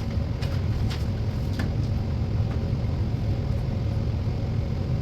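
A steady low rumble, with three light clicks in the first two seconds.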